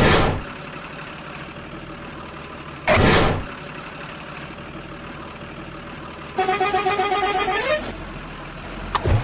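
Vehicle sounds: a steady engine-like hum with three short, loud, noisy bursts about three seconds apart, and a pitched horn-like tone lasting about a second and a half that drops in pitch as it ends.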